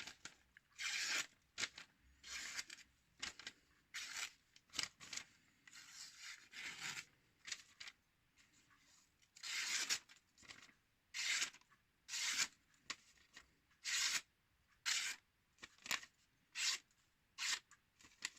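A sharpened knife blade stroked again and again along a homemade strop, each stroke a short hissing swipe. The strokes come unevenly at first, pause briefly partway through, then settle into about one stroke a second.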